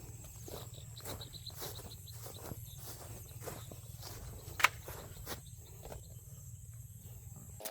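Footsteps through field vegetation, irregular and a few tenths of a second apart, over a high pulsing insect trill. One sharp click stands out about four and a half seconds in.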